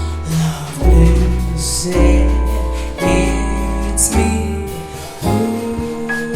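A jazz quintet playing a slow ballad: long, deep double-bass notes changing about once a second under sustained keyboard chords, with a female voice singing and two cymbal splashes.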